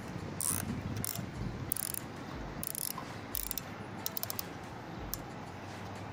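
Nylon cable tie being pulled tight around a metal pole, its teeth ratcheting through the lock in a series of short zips, then a quick run of clicks about four seconds in.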